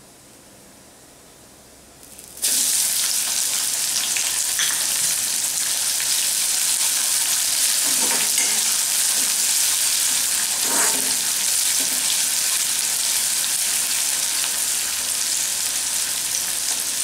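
Chopped onion hitting hot oil and cumin in a kadhai: a sudden loud sizzle starts about two seconds in and carries on steadily as the onion fries. A metal spatula scrapes the pan a few times as the onion is stirred.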